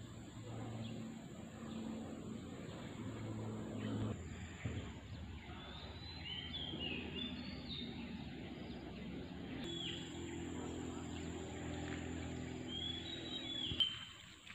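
Outdoor ambience: birds chirping in short clusters among the trees, over a steady low hum and background noise.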